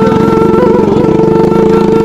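Motorcycle engine running steadily at close range, a fast even putter with no break.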